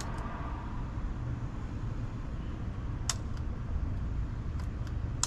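A few sharp, irregular clicks, one about three seconds in and a cluster near the end, over a steady low background hum.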